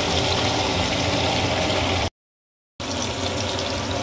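Pork collar deep-frying in a pot of hot oil: a steady sizzling bubble with a low hum underneath. The sound drops out completely for under a second just past the middle, then the frying resumes.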